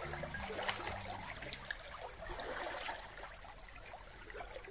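Faint water lapping and trickling against rocks, a soft even wash with small ticks, while a low held music note fades out about a second and a half in.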